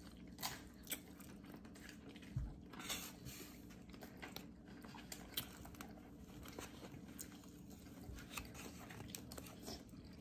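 A person chewing and biting battered fried chicken, with soft scattered crunches and mouth clicks, over a faint steady low hum.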